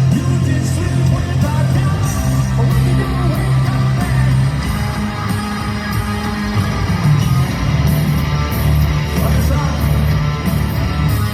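Hard rock band playing live in an arena, loud through the PA: heavy electric guitars, bass and drums, with some singing or yelling mixed in.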